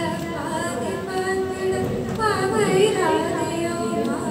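A woman singing into a microphone, with long held notes that bend and slide in pitch.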